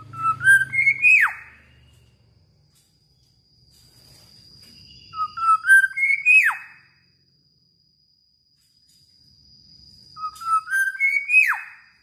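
Black-naped oriole singing three whistled phrases, a few seconds apart. Each is a short run of clear notes climbing in pitch that ends in a sharp downward slur.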